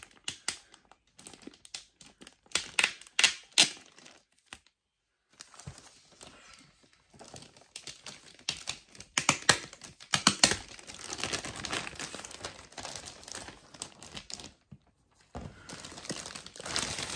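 Clear plastic wrap on a boxed doll crinkling and crackling as the box is handled and turned over. The crackling comes in irregular bursts with two short pauses.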